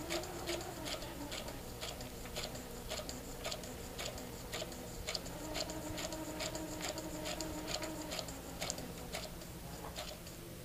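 Domestic electric sewing machine stitching slowly through a paper practice sheet: an even run of needle clicks, about two a second, over a faint motor whine.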